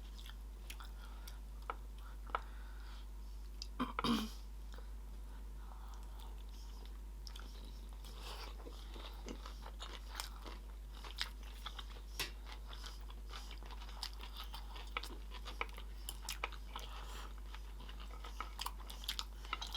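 Close-miked chewing of sushi rolls, with many small wet clicks and crisp crunches scattered throughout and a louder bite about four seconds in.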